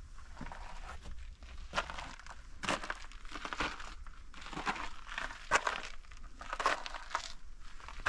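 Footsteps of a person walking over the rough canyon floor, about one step a second, each step a short scuff.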